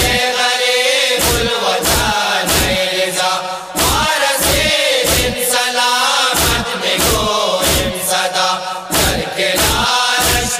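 Voices chanting a Hazaragi noha, a Shia lamentation, in a melodic line, with sharp beats keeping time throughout, often in pairs.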